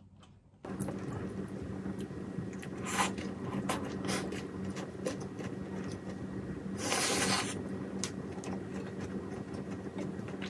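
Scattered light clicks and scrapes of tableware as the last of a meal is eaten, over a steady low hum. A brief rushing hiss comes about seven seconds in.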